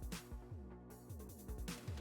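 Background electronic music with a steady beat and sustained synth tones.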